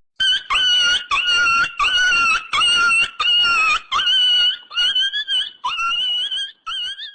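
A comedy sound effect: a high-pitched, animal-like yelping call repeated about ten times, each call short with a quick upward scoop into it. The calls come roughly twice a second and space out toward the end.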